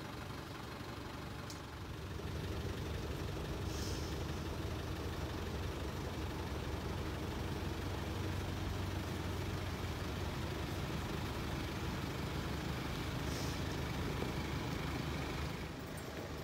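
Mercedes-Benz hearse's engine running as the car drives past, a steady low rumble that builds about two seconds in and falls away near the end.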